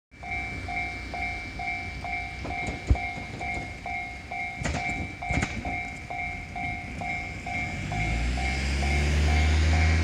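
Japanese level-crossing warning alarm sounding its repeated 'kan-kan' tone, about two strikes a second, as the crossing signals for an approaching train. A few sharp knocks come in the middle, and a low rumble builds over the last two seconds.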